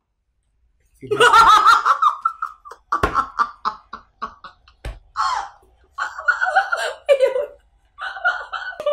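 A woman laughing loudly and at length in a high voice, starting about a second in with a long peal and then breaking into quick short bursts of laughter.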